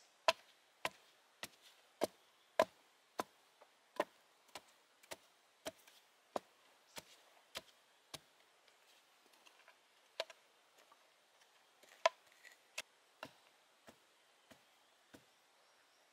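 Chopping strokes of a tool on wood: sharp, separate hits a little under two a second for the first half, then sparser and uneven, with a loud stroke about ten and twelve seconds in.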